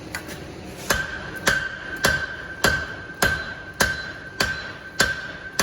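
Hammer blows on hot flat bar over an anvil while drawing out the steel, about nine steady strikes starting about a second in, roughly one every 0.6 s, each leaving the anvil ringing with a high steady tone.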